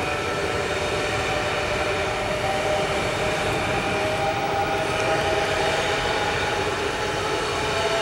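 Three coupled SNCF Z 24500 double-deck electric multiple units running past: steady rolling noise on the rails with a whine of several steady tones over it.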